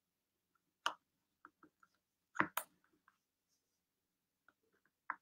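Scattered light clicks and taps of something being handled: one about a second in, a quick pair around two and a half seconds, and one near the end, with fainter ticks between.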